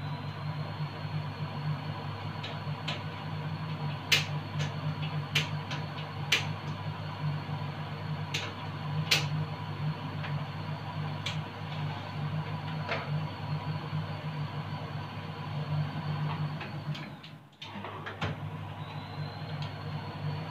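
Cooking at a gas stove: a saucepan and utensils clink and knock a dozen or so times over a steady low hum.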